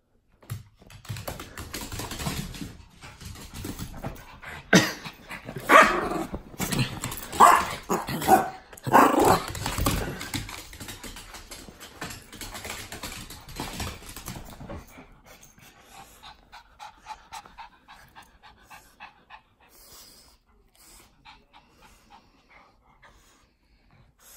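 Small dogs playing with a toy: panting and some barks, loud and busy for the first fifteen seconds or so, then quieter.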